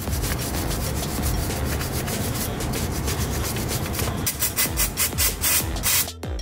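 Wire brush scrubbing the brake hose fitting on a rusty cast-iron brake caliper, a continuous rapid scratching that breaks into sharper, separate strokes in the last two seconds and stops shortly before the end, cleaning off dirt and rust before the hose is disconnected.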